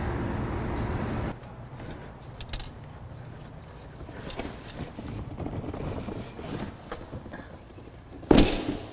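A steady low outdoor rumble that cuts off abruptly about a second in, then light handling clicks and scrapes, and a sharp thump near the end as a white display box is set down on a concrete floor.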